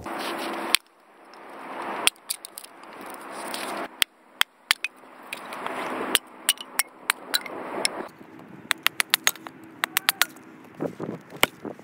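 Axe splitting pine kindling: sharp wooden knocks and cracks as the blade strikes and splits small sticks. The strikes come a few seconds apart at first, then a quick run of light taps in the second half.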